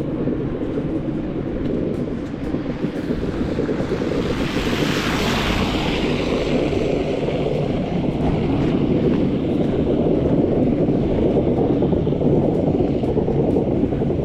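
Low, steady rumble of an approaching snowplow truck, growing a little louder toward the end, with a hiss that swells and fades about five seconds in.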